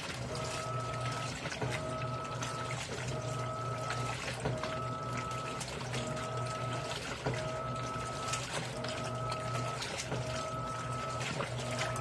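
Electrolux LAI17 17 kg top-load washing machine agitating clothes on its low water level: water churning and sloshing over a steady low hum. The motor whines in strokes of about a second, breaking off briefly at each reversal, roughly every second and a half.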